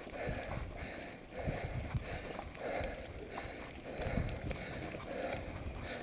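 Riding noise of a mountain bike on a dirt forest trail: tyres rolling over packed dirt and leaves, with the bike knocking and rattling over bumps as a continuous uneven rumble.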